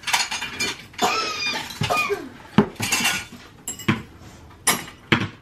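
Hard objects clattering and clinking together in an irregular run of sharp knocks, the loudest about two and a half seconds in.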